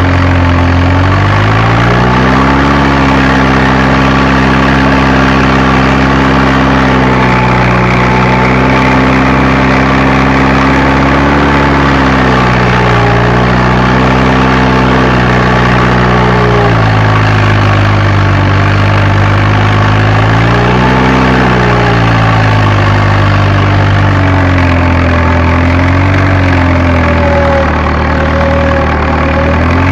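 Fiat tractor's diesel engine running hard while working a field, heard from inside the cab. The engine pitch rises about two seconds in, then dips and swells briefly a few times as the load changes.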